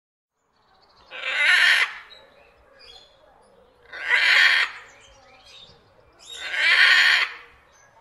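Green-winged macaw screeching: three harsh, loud calls about a second long each, roughly two and a half seconds apart.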